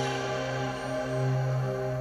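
Electronic music with long held notes over a steady deep bass note.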